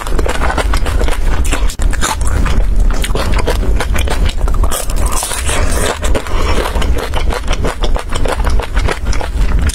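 Close-miked crunchy chewing of crispy fried food: dense, rapid crackles over a low rumble.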